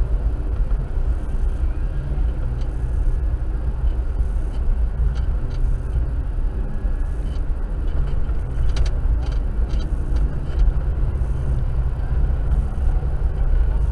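Engine and road noise heard from inside a slowly driving car: a steady low rumble.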